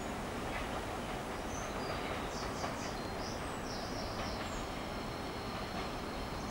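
Steady distant rumble of a diesel locomotive and empty ballast wagons moving away, with birds chirping several times over it.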